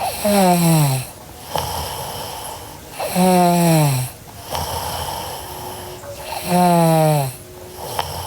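A sleeping girl snoring: three loud snores about three seconds apart, each a tone that slides down in pitch, with quieter breathing between them.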